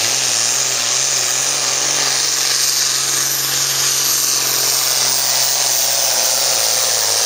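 A John Deere hot farm pulling tractor's diesel engine running flat out under full load while pulling the sled, its black smoke the sign of heavy fuelling. The note holds a steady high pitch with a hissing whine over it, wavering briefly near the start and again near the end.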